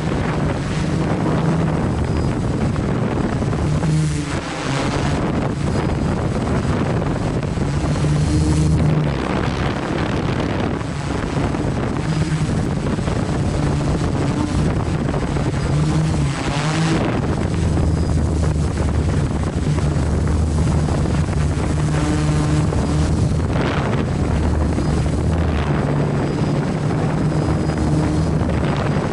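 FPV drone's electric motors and propellers humming, heard close from the onboard camera, the pitch stepping up and down as the throttle changes, with wind rushing past the microphone.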